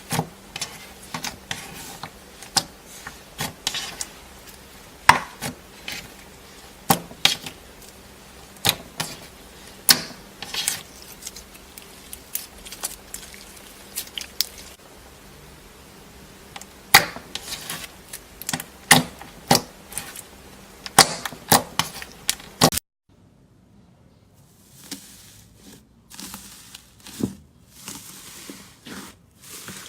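Slime being squeezed and poked by hand, with sharp sticky pops and clicks at irregular intervals. About 23 seconds in the sound cuts to a quieter clip with softer crackling.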